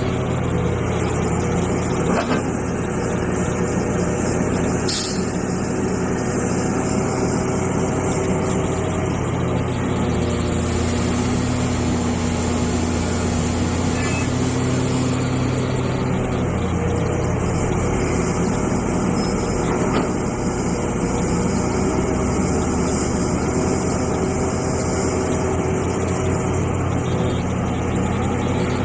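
Hitachi EX450 hydraulic excavator's diesel engine running steadily while digging, its pitch shifting slightly as the load changes, with an occasional faint knock.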